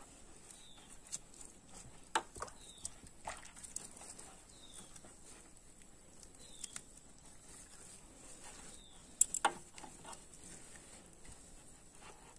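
Hands squeezing and breaking up a water-soaked compressed coco peat block in a metal basin of water: quiet wet squelching with a few small splashes, the sharpest a couple of seconds in and a loud cluster about nine seconds in. Faint short chirps repeat about once a second behind it.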